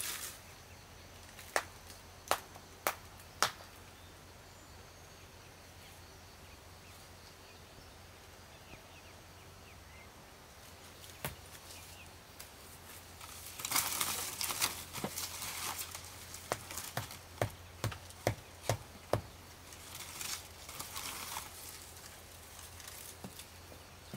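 Footsteps on a leaf-strewn dirt path and rustling of brush: a few sharp steps early, a quiet stretch, then a burst of rustling about halfway through and a run of steps about two a second, with more rustling near the end.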